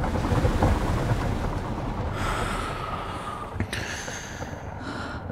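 Automatic car wash heard from inside the car: water spray and brushes give a steady, heavy low rumble on the body. A higher whine comes in for about a second in the middle, and there is a sharp knock a little before the end.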